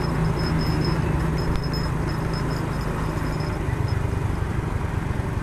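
Motorcycle engine running while riding through town traffic, mixed with road noise and the sound of surrounding vehicles; the engine note shifts about three and a half seconds in.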